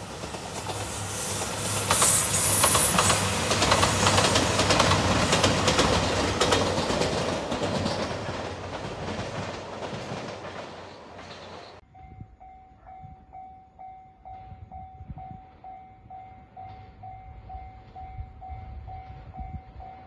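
A JR 2700 series diesel multiple-unit express passing close by, with rail and wheel clatter building to a peak a couple of seconds in and fading. It cuts off abruptly about twelve seconds in, and a level-crossing warning bell then rings steadily, about two dings a second.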